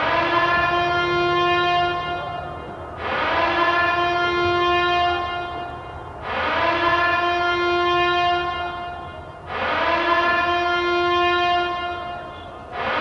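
Nuclear-attack alarm horn sounding in repeated loud, blaring blasts about every three seconds. Each blast slides up briefly in pitch, holds one steady note, then dips before the next begins, with a fifth blast starting near the end.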